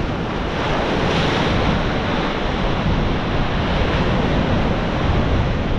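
Sea surf washing up the beach: waves breaking and foamy water rushing over the shore in a steady wash, with wind rumbling on the microphone.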